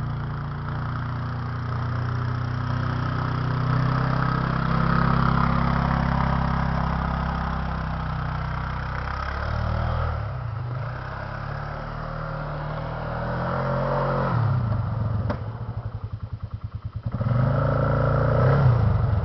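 ATV (four-wheeler) engine running as it is ridden through snow. It grows fainter as the machine moves off and louder as it comes back. Near the end it drops for a couple of seconds to a quieter, slowly pulsing idle, then picks up again.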